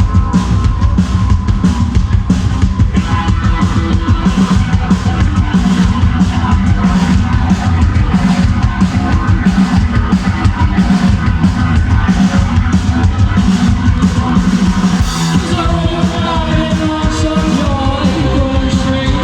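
Live rock band playing loud and fast, a drum kit driving a steady beat under the full band. A voice singing or yelling comes in near the end.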